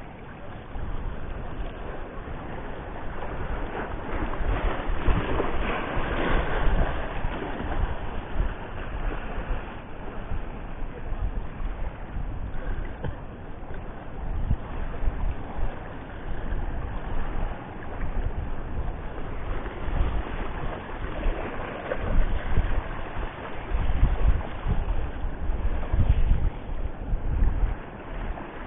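Wind buffeting the camera's microphone in gusts, over waves washing against a rocky shore. The gusts swell twice, about four seconds in and again about twenty seconds in.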